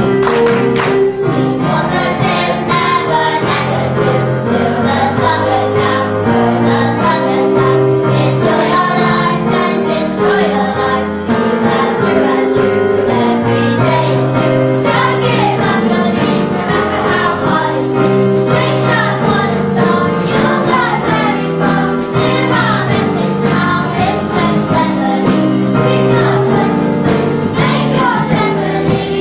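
A children's choir singing a song together, accompanied on a digital keyboard piano.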